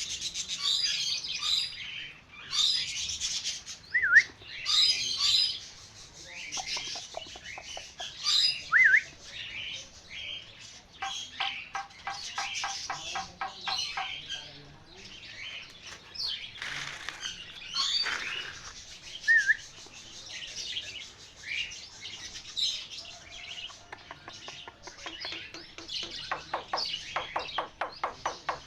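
A songbird chirping and singing busily in high notes, broken twice by a rapid rattling trill and now and then by a short whistled note.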